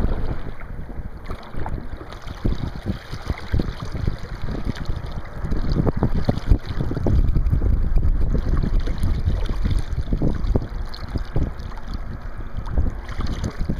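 Wind buffeting the microphone over choppy lake water slapping and splashing against the side of a kayak, in irregular splashes that grow louder for a few seconds midway.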